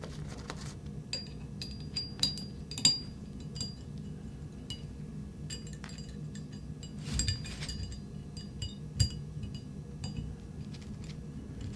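Light metallic clicks and clinks of a steel punch pressing the firing pin down into the rear of a Colt 1911 slide, scattered and irregular, the strongest about 2, 3, 7 and 9 seconds in. The firing pin stop does not drop in because the extractor is not lined up.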